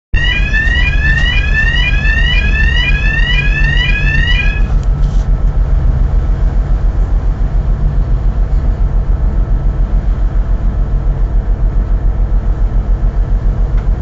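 A boat's engine throbbing in a steady, even pulse. For the first four or five seconds an electronic alarm sounds over it, repeating a rising whoop about three times a second, then stops.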